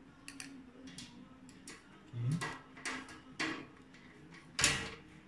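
Metal clicks and knocks from the galvanized steel parts of an IKEA Hyllis shelf unit being screwed together with a hand screwdriver, a handful of short knocks with the loudest near the end.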